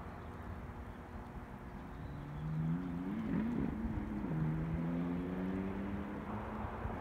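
A motor vehicle engine goes by over steady background noise. Its hum comes in about two seconds in, wavers up and down in pitch for about a second, then holds at a lower pitch and fades near the end.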